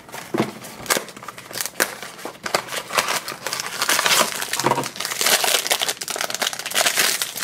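Small cardboard blind box being opened by hand, then the foil wrapper inside crinkled and torn open: a long run of dense crackling and rustling, thickest in the second half.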